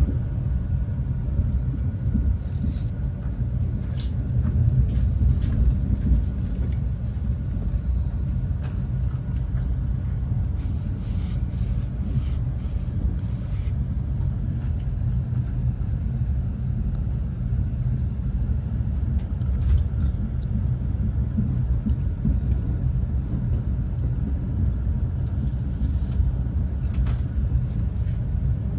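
Renfe class 130 (Talgo 250) high-speed train running at speed, heard from inside the carriage as a steady low rumble of wheels on track, with a few faint clicks now and then.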